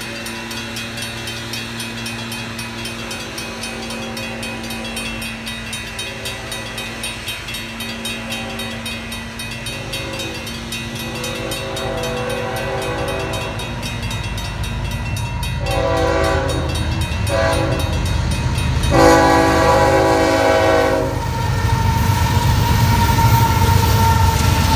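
Railroad crossing bell ringing steadily as a freight train approaches. Past the middle the diesel locomotive's horn sounds three times, two short blasts then a longer one. Near the end the Union Pacific locomotive rumbles into the crossing, getting louder.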